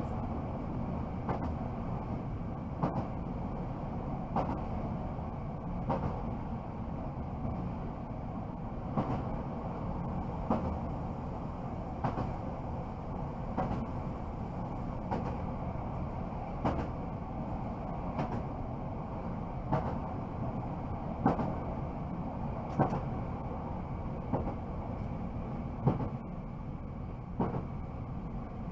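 Newag Impuls electric multiple unit running steadily, heard from the driver's cab, with its wheels clicking over rail joints about every one and a half seconds.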